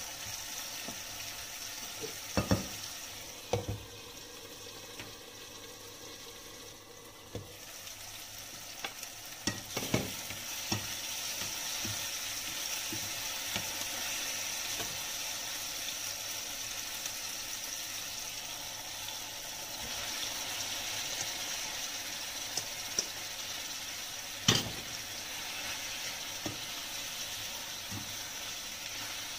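Sliced onion and tomato sizzling in a nonstick frying pan as a plastic spatula stirs them. The spatula scrapes and knocks against the pan now and then, the sharpest knock coming about two thirds of the way through.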